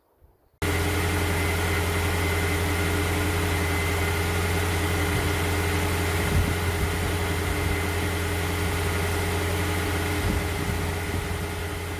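The 2003 Range Rover Vogue's BMW 4.4-litre V8 idling steadily. It cuts in suddenly about half a second in, then holds an even, unchanging hum.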